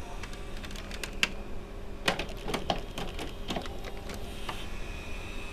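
Toshiba M751 VCR's tape mechanism clicking and clattering irregularly for a few seconds, over a steady low hum.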